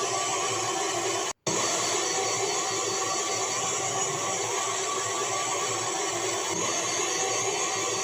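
A siren sounding at a steady held pitch, harsh and noisy. It cuts out for an instant about a second and a half in, then carries on unchanged.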